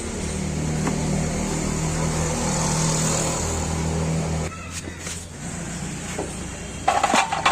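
Suzuki Access scooter's single-cylinder engine running with a steady hum, dropping away abruptly about four and a half seconds in, followed by a few metallic clinks near the end. The scooter has a khach-khach rattle from the clutch side, which the mechanic puts down to an over-tight drive belt.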